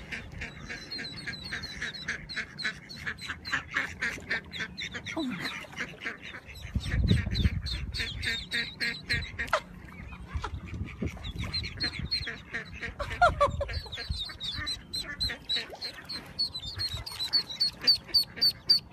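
Ducklings peeping rapidly and continuously in high, shrill chirps. A loud low rumble comes about seven seconds in, and a lower call falling in pitch comes about thirteen seconds in.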